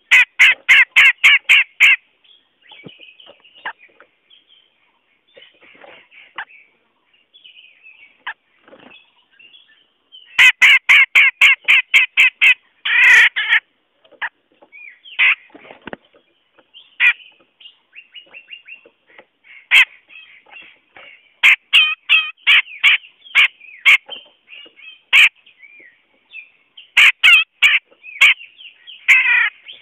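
Cucak jenggot, a bulbul, calling as a trapping lure: several loud strings of quick, evenly repeated notes, each about two seconds long, with softer scattered notes between.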